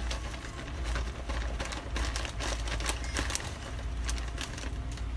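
Mr. Chips corn chips being poured from their bag into a glass bowl: a dense, irregular rattle of many small clicks as the dry chips fall onto each other and the glass.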